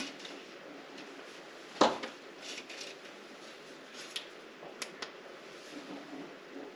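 Small clicks and knocks of hands handling a plastic fairy-light reel as its thin wire strand is pulled off, with one louder sharp knock about two seconds in and a few lighter clicks after it, over a faint steady hiss.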